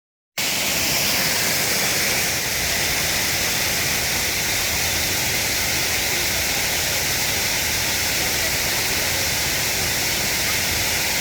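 Waterfall rushing: a steady, even noise of falling water that cuts in abruptly a moment in.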